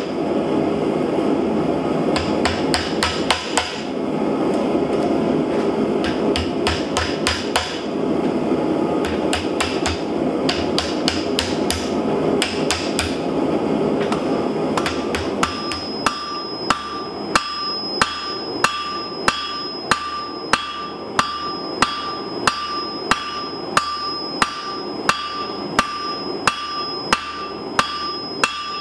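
Hand hammer striking a hot steel oak leaf clamped in a bench vise: quick, uneven blows over a steady rushing noise. About halfway through, this gives way to a hammer forging a hot bar on an anvil, regular blows about one and a half a second, each with a clear ring from the anvil.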